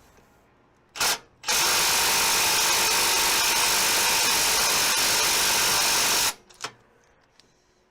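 A power tool running: a brief burst about a second in, then a steady run of nearly five seconds that stops abruptly.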